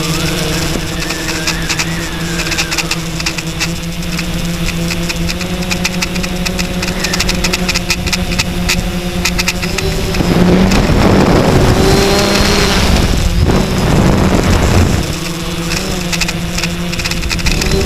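Quadcopter's electric motors and propellers humming steadily, heard from the onboard GoPro. About ten seconds in, a rushing air noise swells over the hum for about five seconds, then the plain hum returns.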